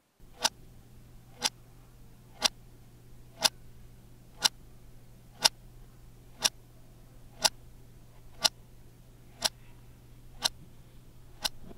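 Analogue wall clock ticking once a second with sharp, evenly spaced ticks over a low steady hum.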